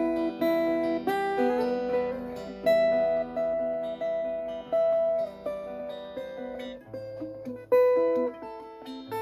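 Cort SFX electro-acoustic guitar played through a small Marshall amp: chords and single notes struck one after another, each ringing on and fading before the next.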